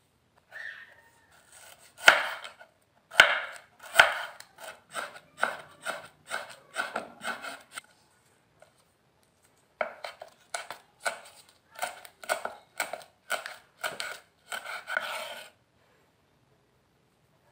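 Kitchen knife chopping herbs on a bamboo cutting board, slicing kaffir lime leaves: two runs of steady strokes about two a second with a short pause between them, the first few strokes the loudest.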